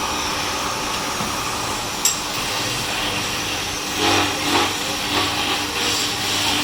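Woodworking machinery running steadily, with a sharp click about two seconds in.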